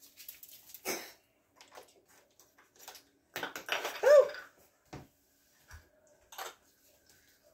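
Scattered light clicks and knocks of kitchen handling around a sheet pan and a glass spice jar, with a brief rustle just after three seconds. About four seconds in comes the loudest sound, a short exclamation of "Oh!" that rises and falls in pitch.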